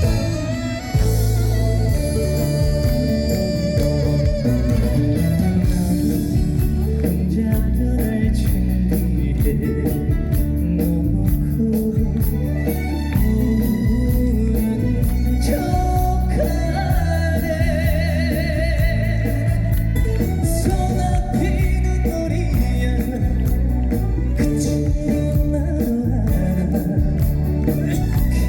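Trot song sung over a full instrumental backing, the voice swelling into vibrato on long held notes.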